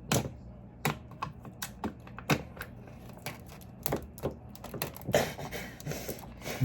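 Plastic microwavable soup container and its packaging being handled: a series of irregular sharp clicks and taps.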